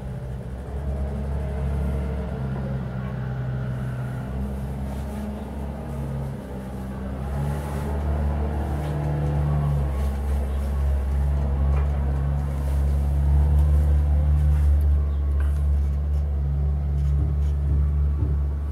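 A steady low motor rumble that grows louder from about seven seconds in.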